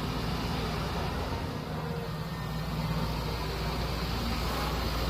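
Heavy machine engine running steadily at a constant speed: an even, low drone.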